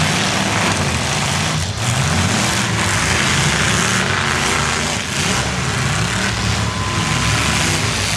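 Engines of several demolition derby pickup trucks revving hard and changing pitch as they drive around the dirt arena, loud and continuous.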